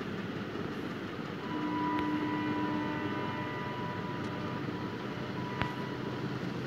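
Steady background noise between the narration, with a faint held tone coming in about a second and a half in and a couple of light clicks.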